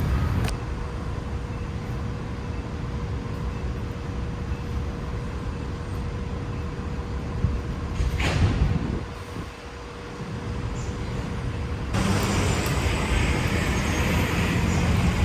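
Low, steady motor-vehicle rumble with a faint constant hum. There is a short burst of hissing noise about eight seconds in, and the sound turns louder and hissier from about twelve seconds.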